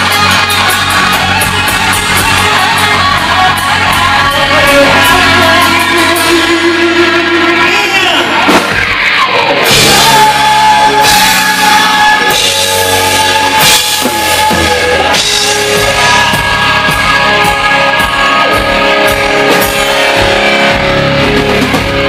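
Live rock band playing loud in a large hall, with electric guitar and drum kit. About eight seconds in the guitar makes a sliding swoop in pitch. From about ten seconds in, cymbal crashes come again and again over the band.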